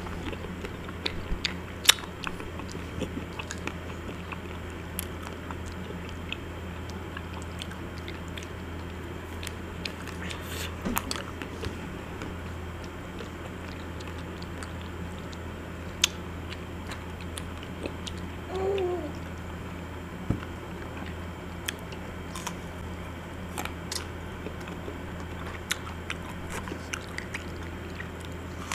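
Biting and chewing into chocolate-and-almond-coated ice cream bars: scattered crunches and wet mouth clicks over a steady low hum.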